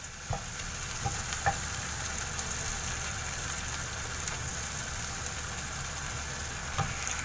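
Tuna sisig sizzling steadily in a frying pan, cooked through, with a few light clicks from a utensil.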